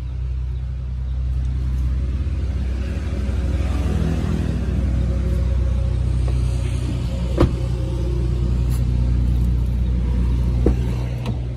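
A motor vehicle's engine running steadily, a low rumble. A sharp knock about seven seconds in and a lighter one near the end.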